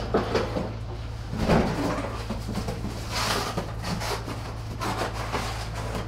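Plastic housing parts and wiring of a canister vacuum being handled during disassembly: a series of light knocks, clicks and scrapes over a steady low hum.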